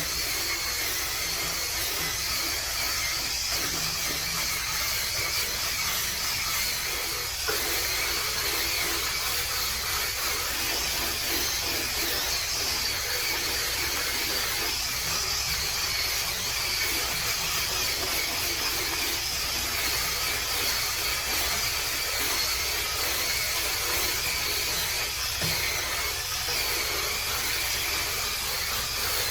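Small battery-powered electric scrub brush running steadily, its spinning bristles scrubbing grime out of a car cup holder insert, with one light knock about seven seconds in.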